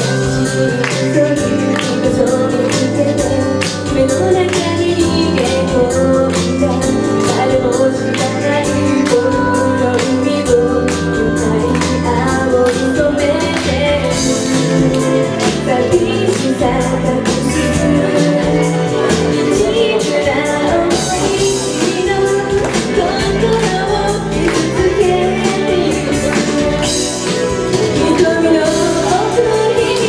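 Woman singing a Japanese pop song live into a handheld microphone, amplified through the venue's PA, over a full pop backing with a steady drum beat.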